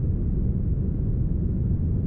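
Steady, smoothed brown noise: an even, deep rumble-like noise with most of its weight in the low end and almost nothing in the highs, unchanging throughout.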